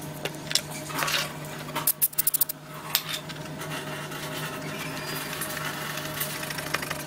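Small hard objects clicking and clinking, with a quick run of about eight clicks around two seconds in, over a steady low hum.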